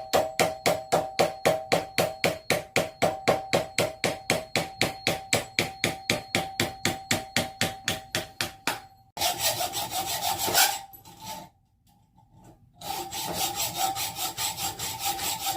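Fast, even back-and-forth strokes of a hand tool cutting into the hardened steel of a clip-remover tool, about four or five a second, the metal ringing with each stroke. About nine seconds in the strokes give way to a steadier scraping, which stops for about two seconds and then starts again.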